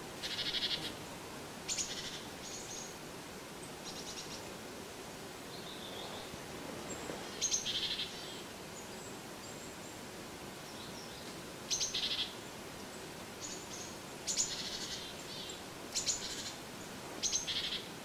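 Small songbirds calling in the forest: short, high chirps, each a quick rattle of notes, about ten at irregular intervals over a faint steady background hiss.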